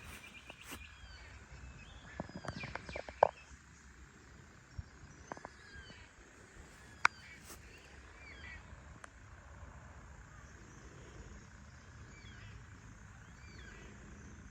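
Birds chirping, with short calls scattered throughout, over low outdoor ambience. A few sharp clicks cut through, the loudest about three seconds in and another about seven seconds in.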